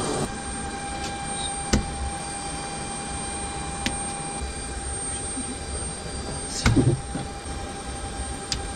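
A steady electrical hum of aircraft cockpit equipment and fans, with a few sharp clicks as circuit breakers on an Airbus A320 cockpit breaker panel are pulled.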